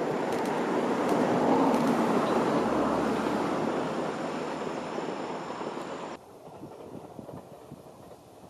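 Train passing, its running noise loudest about two seconds in and easing off, then cut off suddenly about six seconds in, leaving faint wind noise.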